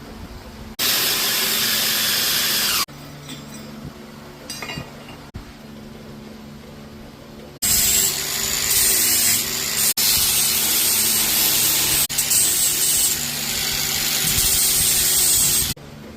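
Loud, steady noise of a tool working steel, in two edited stretches: about two seconds near the start, then a long run of about eight seconds that stops abruptly near the end.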